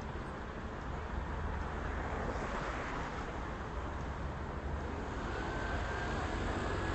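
Steady city street noise from passing traffic, with a faint high whine joining about five seconds in.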